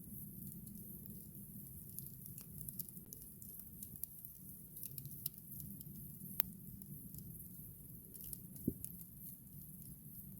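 Wood campfire crackling: scattered small irregular pops over a steady low rush, with two louder snaps about six and eight and a half seconds in.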